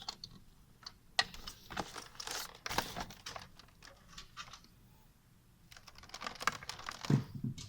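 Clusters of light clicks and rustling from plastic monitor stand parts being handled and fitted, with a quieter stretch in the middle.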